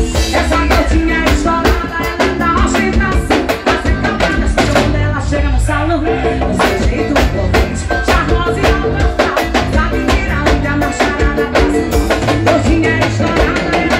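Instrumental break of a forró band: accordion and keyboard melody over a drum kit and congas keeping a fast, steady dance beat.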